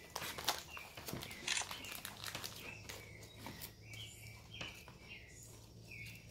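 Slime being stirred with a stick in a plastic cup, with light scraping and clicking and the crinkle of a paper packet being handled. Over the second half comes a run of short high chirps about twice a second.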